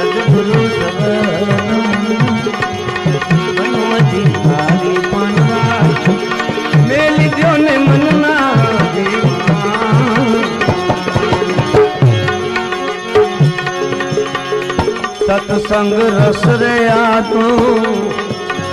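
Instrumental interlude in a Gujarati devotional bhajan: tabla keeping the rhythm under held melodic notes, with a wavering melody line coming in twice.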